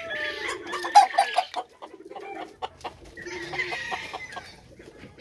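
Chickens clucking in a run of short calls, loudest about a second in, followed by a longer drawn-out call about three seconds in.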